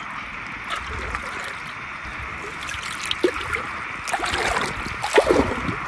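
River water running steadily over stones, with a few splashes in the water in the last couple of seconds.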